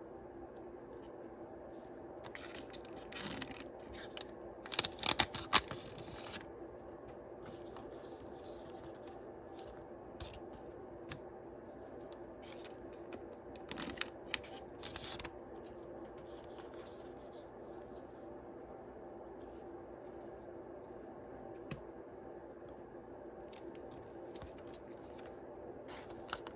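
Yu-Gi-Oh booster packs being opened and handled: the foil wrappers crinkle and are cut or torn open in short clusters, a few seconds in, around the middle and near the end, over a faint steady hum.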